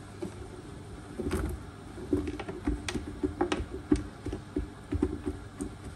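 Irregular light taps and knocks of firm, lime-cured squash pieces being handled and blotted dry on a kitchen towel, coming thickest from about a second in.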